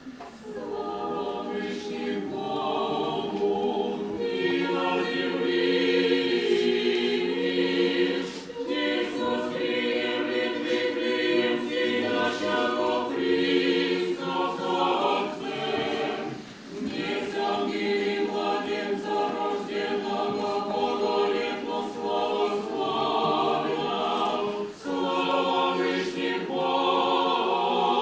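Choir singing a sacred hymn in long held phrases, with three short breaths between phrases.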